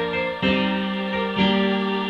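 Instrumental music played on a Korg electronic keyboard: sustained chords, with a new chord struck about once a second.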